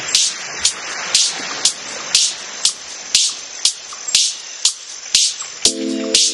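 Electronic background music: a steady beat of crisp hi-hat and snare-like hits, about two a second, with synth chords coming in near the end.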